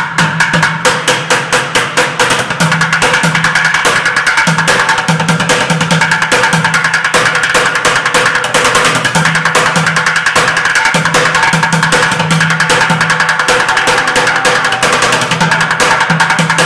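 Plastic buckets drummed with wooden drumsticks: a steady run of separate strikes that, about two seconds in, turns into fast, dense rolls that go on without a break.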